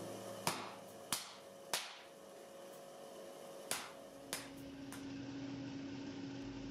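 Hand hammer striking a red-hot steel knife blank on an anvil during forging: three blows about half a second apart, then two more after a pause of about two seconds.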